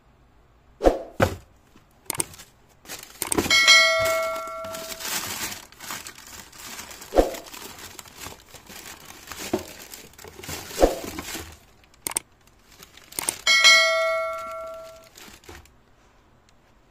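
Handling noises from a shoe unboxing: scattered knocks and thunks of the box and packaging, with paper rustling. Twice, about three seconds in and again near the end, a bell-like ringing tone sounds over the rustling.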